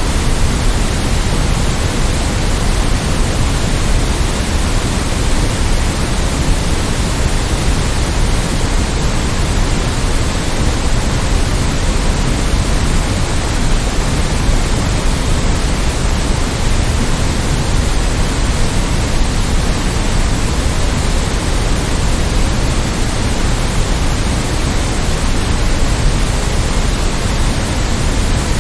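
Steady white noise: an even, unchanging hiss with a heavier low end.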